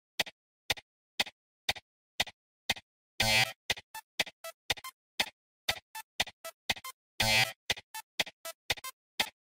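Outro music made of short, separate notes with gaps between them, about two a second at first and then quicker, with a fuller burst about three seconds in and again near the end.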